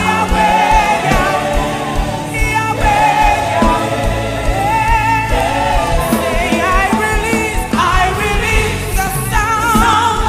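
Gospel worship music: sung melody with a backing choir over a steady band beat.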